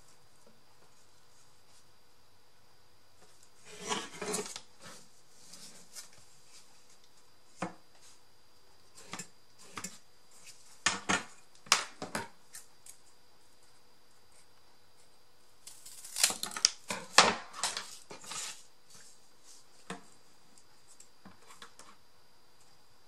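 Cardboard being cut and handled on a work surface: clusters of sharp snips and clatter, with the loudest bunches about four seconds in, around eleven to twelve seconds, and from sixteen to eighteen seconds.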